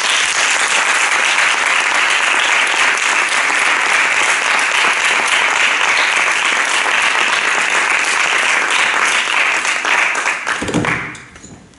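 Audience applauding, holding steady and then dying away near the end.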